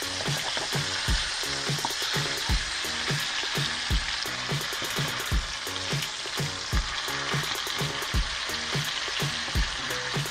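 Whole scored black sea bass pan-frying in hot oil, a steady sizzle throughout. Underneath is a faint regular low beat, like background music.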